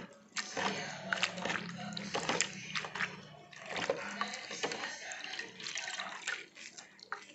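Hands squeezing and kneading a fistful of dadap leaves in a container of water, with irregular wet squelching, dripping and small splashes.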